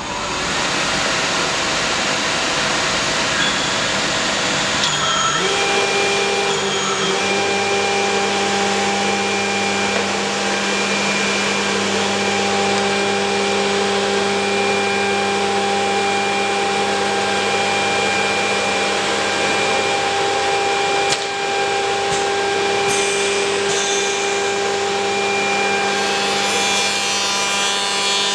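Schirmer EF corner rounding milling machine starting up, its spindle motors spinning up within the first second, then running steadily with a hum of several steady tones. A brief click about 21 seconds in.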